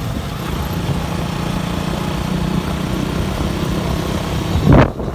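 Engine and road noise of a moving vehicle: a steady low drone, with a brief loud rush of noise near the end.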